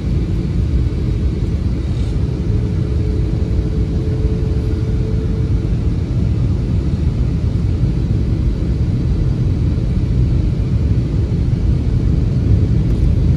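Steady low rumble of engine and airflow noise in the cabin of an Airbus A320-family airliner, heard from a window seat on its descent to land. A faint steady hum rides over it for a few seconds near the start.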